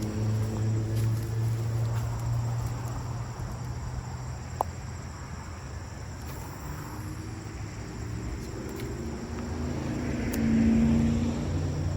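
Low engine drone of a motor vehicle going by, fading and then growing louder toward the end, with one sharp click about halfway through.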